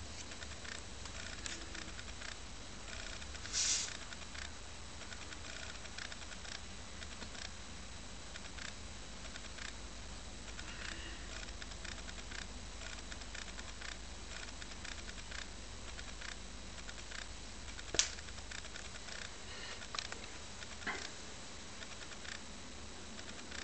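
Handheld camera handling noise: a few scattered clicks and brief rubs from fingers on the camera body over a steady faint hiss and low hum, with one sharp click late on.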